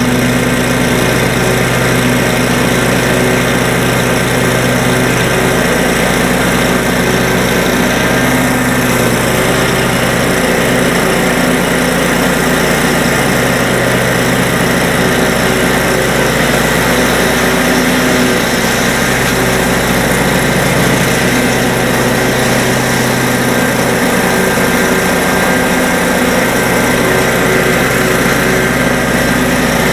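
Lawn mower engine running steadily as the mower travels across the lawn.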